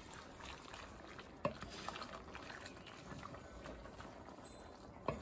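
Cream sauce with bowtie pasta bubbling in an enamelled cast-iron Dutch oven while a spoon stirs it. There are a few light clicks, the loudest about a second and a half in and another just before the end.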